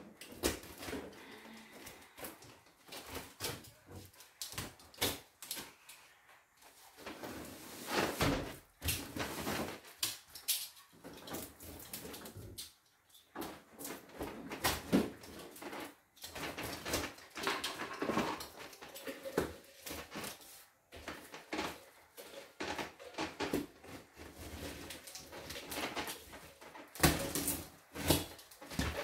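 Bubble wrap, plastic packing and a cardboard box being handled and pulled open: irregular rustling and crinkling, with louder crackles and scrapes now and then.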